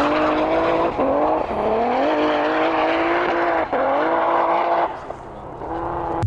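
High-powered BMW drift car's engine revving hard while sliding through snow. Its pitch climbs in three runs, broken by short drops about a second in and near four seconds. It drops away and carries on more faintly about five seconds in.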